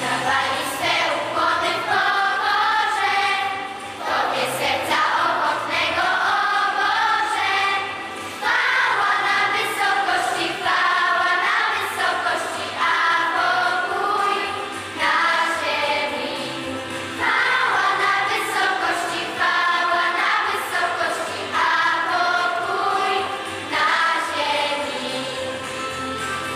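A choir singing a Polish Christmas carol in short phrases, over a steady instrumental accompaniment.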